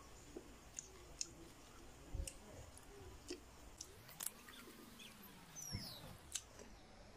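Faint, close-up eating sounds: scattered soft mouth clicks and lip smacks while chewing food eaten by hand. Midway through comes a low, drawn-out hum that rises and falls.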